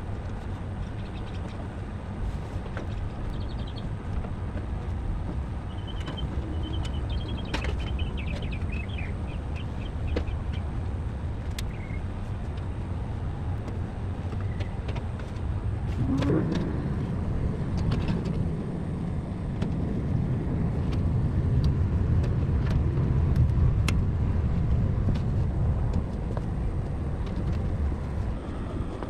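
Steady low rumble of outdoor background noise, with a few short high chirps about a quarter of the way in and a brief rising sweep about halfway through.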